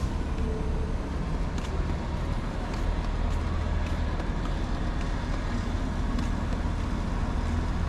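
City street traffic noise: a steady low rumble of passing road vehicles, with a few faint ticks over it.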